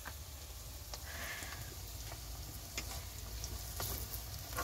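Sliced onions sizzling faintly in a wok over a wood fire on a clay hearth, with a few scattered faint clicks.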